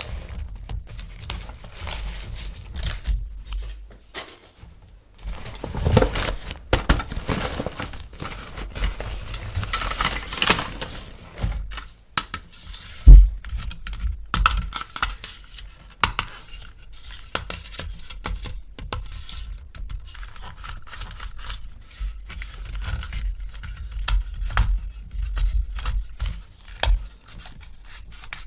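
Toy packaging being opened and handled: plastic and cardboard crinkling and tearing, with many small clicks and knocks of plastic parts, and one louder thump about thirteen seconds in.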